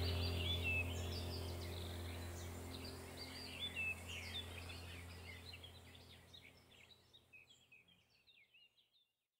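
Birds chirping and trilling in a busy chorus over a low steady hum, the whole fading out to silence near the end.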